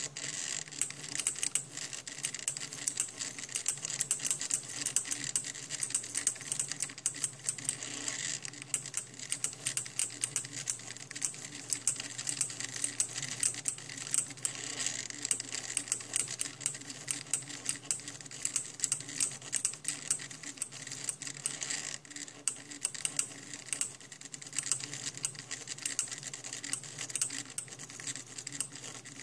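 A homemade mini SCARA pen plotter's cheap 50-step-per-turn stepper motors drive its arm while it writes letters and numbers in marker, giving a constant rapid clicking and ticking over a steady low hum.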